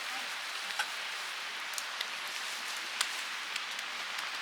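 Popcorn kernels sizzling in hot oil in a pot: a steady hiss with a few light ticks.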